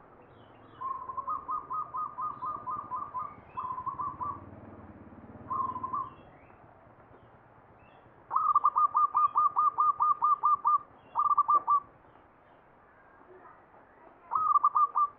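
Zebra dove (perkutut) singing the staccato cooing song that fanciers call ngepat: phrases of quick repeated coos at one pitch. A long run starts about a second in, two short bursts follow, then a louder long run past the middle and short phrases near the end.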